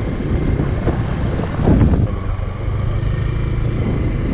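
A small motor engine running steadily, with a louder rumble about one and a half seconds in.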